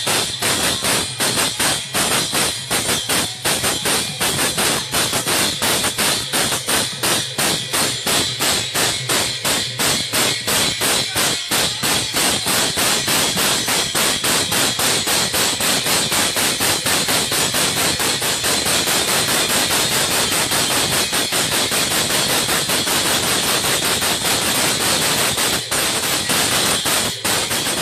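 Kirtan percussion interlude: brass hand cymbals ringing and clashing fast over a khol drum, about four or five strikes a second. The strikes grow denser into a continuous clatter from about halfway through.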